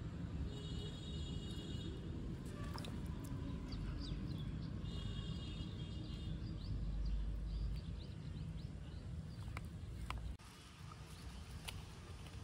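Birds calling and chirping outdoors, two runs of high calls with short chirps between, over a steady low background rumble, with a few light clicks.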